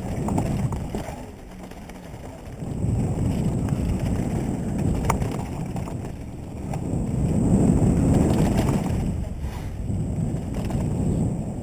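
Mountain bike riding a dirt trail: wind rumble on the camera microphone and tyres rolling over dirt, swelling and fading, with a quieter stretch near the start. A few sharp clicks and rattles come from the bike.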